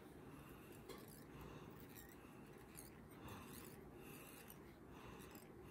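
Near silence with faint rustling of fly-tying thread being wrapped tightly around the collar of a jig's silicone skirt.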